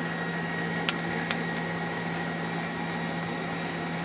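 ACE KISS 104 selective solder machine running with a steady hum on one low tone, with two faint clicks about a second in.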